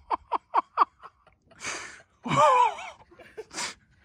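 A woman's short breathy laughs, about five in quick succession, then a breath and a high-pitched wavering squeal, then another short breath.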